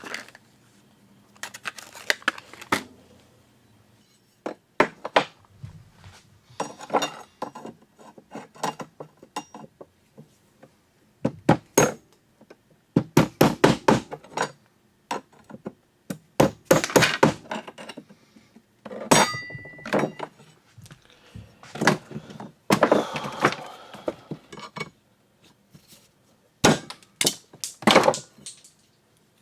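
Hand tools knocking, tapping and clinking against the metal wiper linkage and its old bushings, in irregular bursts of rapid strikes separated by pauses, with one brief metallic ring about 19 seconds in.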